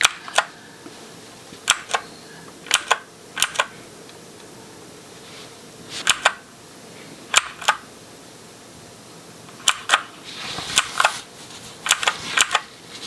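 Keys pressed one at a time on a Keychron wireless keyboard to step through its backlight modes: about ten sharp clicks, mostly in quick press-and-release pairs, spaced a second or more apart.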